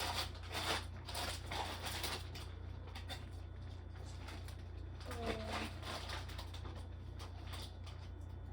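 Plastic snack bags rustling and crinkling as they are handled, strongest in the first two seconds, then quieter over a steady low hum, with one short pitched sound about five seconds in.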